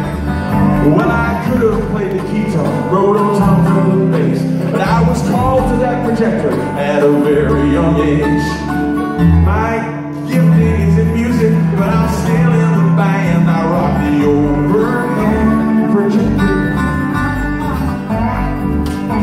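Live country-style song led by a strummed acoustic guitar, with a bass line underneath.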